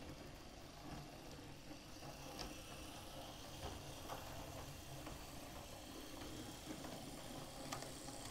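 OO gauge J72 model locomotive running along the track, its small electric motor giving a faint steady hum, with a few light clicks as the wheels pass over the rail joints and points.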